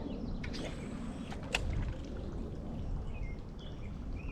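Steady low rush of creek water, with one sharp click about a second and a half in and a few short high chirps near the end.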